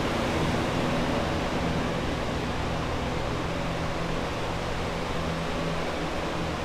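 Steady fan noise of flood-drying equipment running, a commercial dehumidifier among it, with a low steady hum underneath that fades a little.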